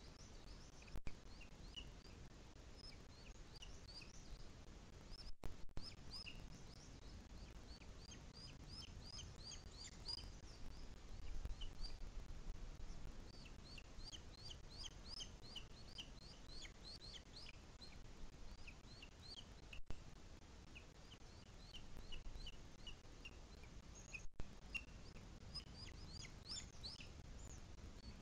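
Bird chirps: short, high, slightly falling calls repeated in quick runs over a faint low background rumble.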